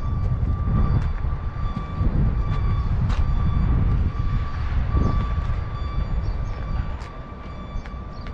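Heavy machinery rumbling, with a steady high-pitched beeping tone over it and a few light knocks.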